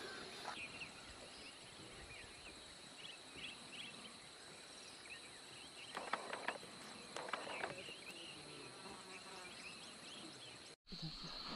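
Steady high-pitched drone of insects with faint scattered bird chirps, and two short calls about six and seven seconds in from a spotted deer (chital).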